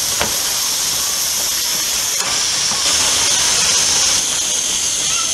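Steam hissing steadily from a narrow-gauge steam locomotive, a little louder for about a second from around three seconds in.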